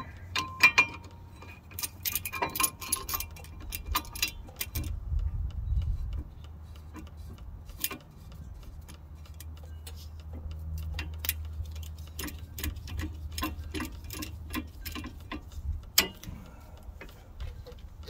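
Irregular metallic clicks, clinks and jingling as a brake pad and a clamp are handled and fitted, over a low steady hum.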